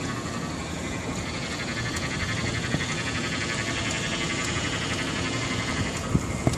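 1995 Mercury Grand Marquis with its engine running and a steady, multi-pitched whining noise, which the owner suspects comes from the power steering. A couple of sharp clicks near the end.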